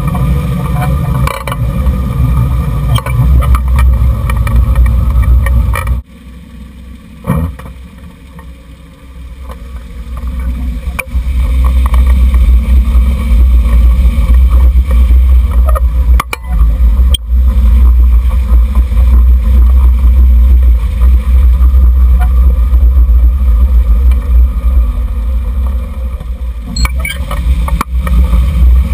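Wind buffeting and road noise at a camera mounted under a lifted Jeep Cherokee's front suspension while it drives, a heavy low rumble. It drops away suddenly about six seconds in, with a single knock a second later, and builds back up over the next few seconds.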